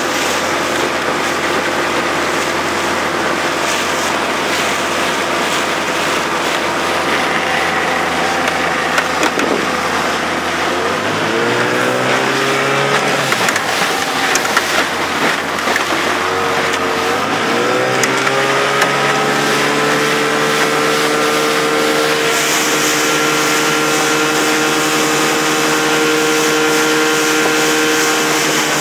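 Chrysler 45 two-stroke outboard motor driving a small fibreglass speedboat: running steadily at low speed, then about ten seconds in its pitch climbs as the throttle is opened, dips, climbs again and holds a steady high note at planing speed, falling off near the end. Water rushes along the hull throughout.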